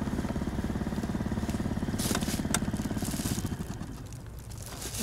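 A motor engine running steadily, with a low pulsing hum that fades away after about three and a half seconds.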